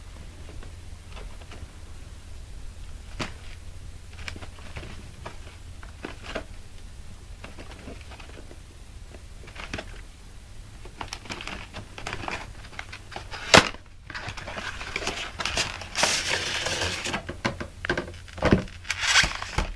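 Cardboard box and packaging being opened and handled: scattered light clicks and taps, then rustling and crinkling of packaging, with a sharp snap about two-thirds of the way through and a few knocks near the end.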